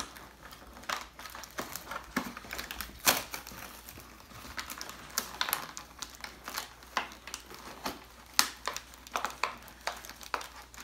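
Cardboard box and plastic packaging being handled and pulled apart to free a toy blaster from its box insert: irregular clicks, rustles and crinkles, with sharper snaps about three seconds in and again just past eight seconds.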